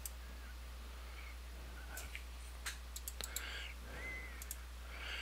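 Computer mouse clicking: several sharp clicks, most of them in a quick run between about two and three and a half seconds in, over a steady low hum, with a few faint short high chirps.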